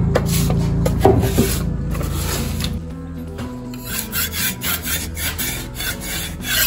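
Metal scraper blade scraping across a concrete floor, working off dust and dried glue residue in repeated short strokes, about two a second in the second half.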